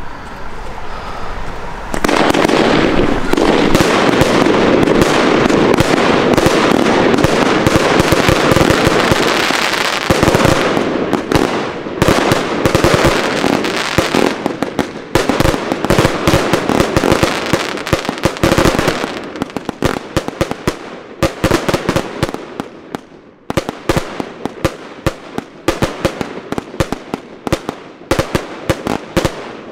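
Röder Jubelbox compound firework cake of 120 shots going off. About two seconds in it erupts into a dense, unbroken barrage of launches and bursts for some eight seconds, then breaks into separate shots and crackling bursts that thin out toward the end. The cake is firing through, many tubes going up at once, which the owner counts as having gone wrong.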